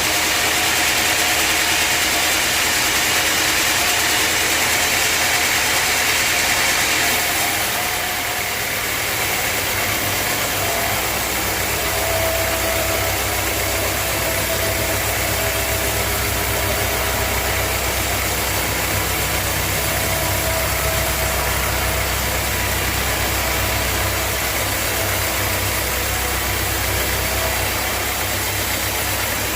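Sawmill machine running steadily. A loud high hiss stops about seven seconds in, and a low engine hum then carries on.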